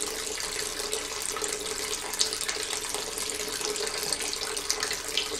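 Steady pouring and trickling of liquid with small splashes: milk poured from a carton into a water-filled Lego maze. The sound runs on unchanged after the pouring stops.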